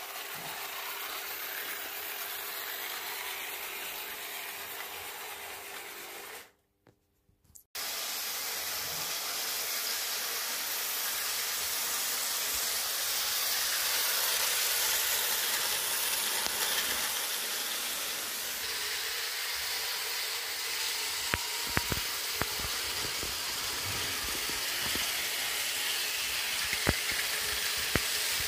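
Vintage Märklin HO model trains running on metal track: a steady hissing running noise with a brief cut about seven seconds in, and a few sharp clicks in the last third.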